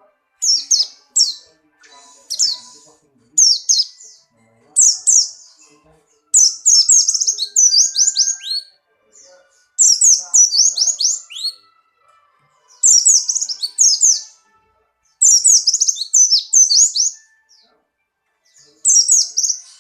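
Buxtoni white-eye (pleci) singing in short, loud phrases of rapid, high, down-slurred notes, a phrase every second or two, with a couple of longer runs. This is the song of a bird in full breeding condition.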